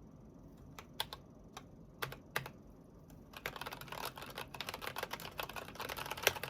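Keys of an Akko Sakura Jelly mechanical keyboard clacking: a handful of separate key presses, then from about halfway in, fast continuous typing.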